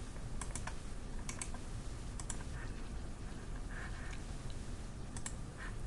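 Sparse, sharp clicks of a computer mouse, several in quick pairs, over a faint steady hiss.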